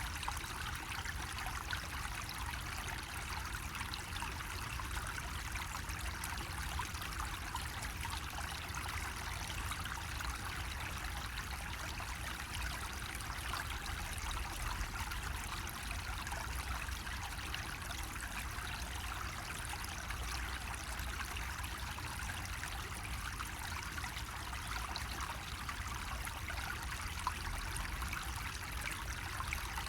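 Water trickling steadily from a bamboo spout, an even splashing flow with a low steady rumble underneath.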